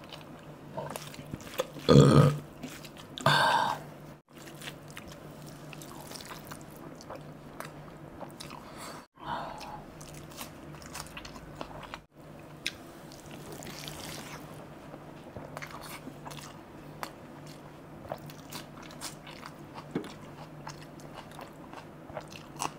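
Close-miked eating sounds: chewing, wet mouth smacks and small clicks of a person eating chicken curry and rice with his hands. Two short, loud vocal sounds come about two and three seconds in, and a faint steady low hum runs underneath.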